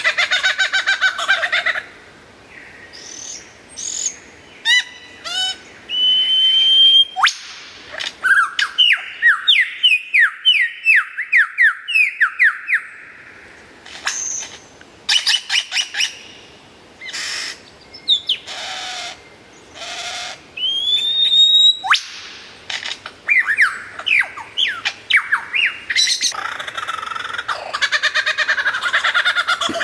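Lyrebird singing a loud, varied sequence of mimicked calls. It moves from dense chattering to a rising whistle, then a fast cascade of downward-sweeping whistled notes, then quick stuttering clicks, and ends with dense chattering again near the end.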